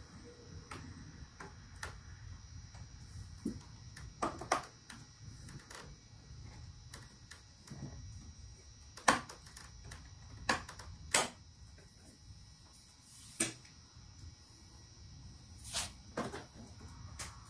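Scattered clicks and knocks of plastic interior trim pieces and light fittings being worked loose and handled, with a few sharper clicks in the second half.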